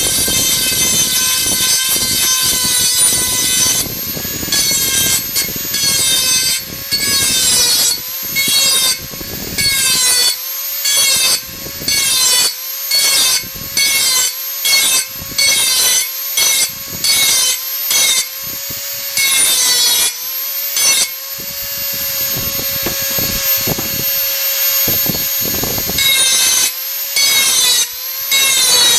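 Dremel 4000 rotary tool whining at high speed while sharpening the edge of a steel garden hoe, in short repeated passes about a second apart; each pass adds a burst of grinding and pulls the whine's pitch down slightly under load. For several seconds near the end the tool runs free without touching the metal, then the passes resume.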